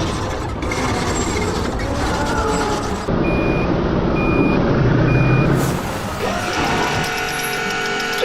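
A construction vehicle's reversing alarm beeps three times, evenly spaced, over its engine running loudly.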